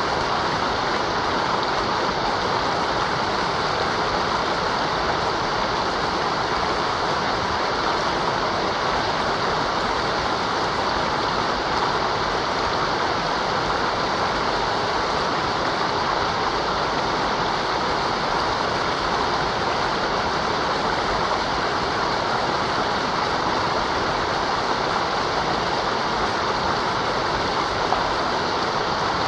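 Mountain river rushing steadily over rocks, a constant even rush of water with no breaks.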